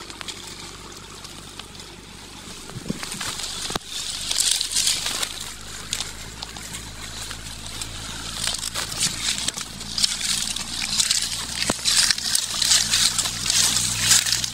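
Dry leaves and brush rustling and crackling, with the crackles growing busier from about four seconds in.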